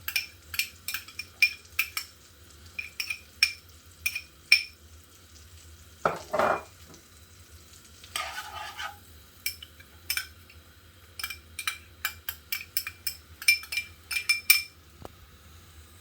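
A spoon stirring onions in melted margarine in a pot, knocking and scraping against the pot in quick, irregular taps over a faint sizzle. Two longer, louder sounds come about six and eight seconds in.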